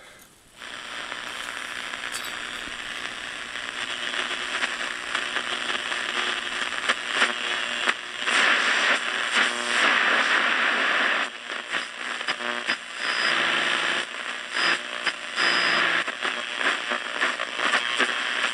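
Hallicrafters S-38D tube shortwave receiver's loudspeaker hissing and crackling with static as it is tuned across shortwave band 3. Brief snatches of signals and short whistles come through in the second half.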